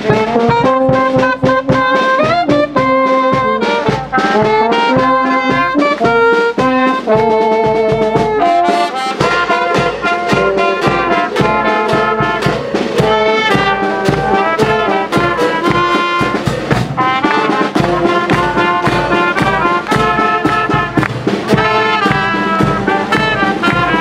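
A brass band playing a melody, with brass carrying the tune over a continuous beat of percussive strikes.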